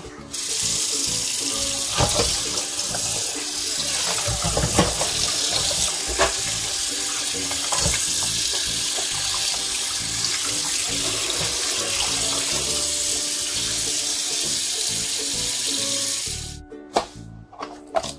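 Tap water running into a stainless steel bowl while tilapia are rinsed and rubbed by hand, with a few knocks along the way. The water cuts off about two seconds before the end, followed by a few light clicks.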